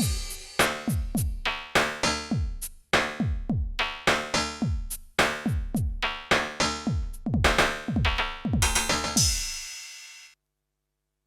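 Yamaha DTX720K electronic drum kit playing a synth-style drum kit voice: a busy pattern of hits, many kick and tom sounds sliding down in pitch, with cymbal and hi-hat strikes. A final cymbal crash rings and fades out about ten seconds in, followed by silence.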